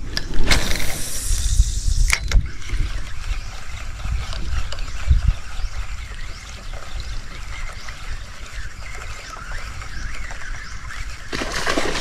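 A cast with a spinning rod: a hiss as the line runs out, a sharp smack about two seconds in as the bait lands on the water, then light splashing and trickling as the skipping bait is worked across the pond surface, with a low rumble underneath.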